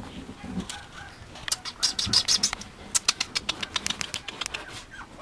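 Mame shiba puppy making soft, low whimpering sounds in the first second. From about a second and a half in there is a dense run of rapid crackling clicks.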